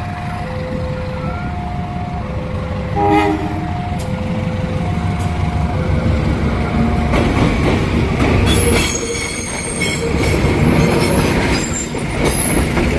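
Level-crossing warning siren sounding a two-tone hi-lo wail, the two pitches taking turns about every half second, with a brief horn blast about three seconds in. From about seven seconds in a train passes over the crossing, its wheels rumbling with a high squeal that partly covers the siren.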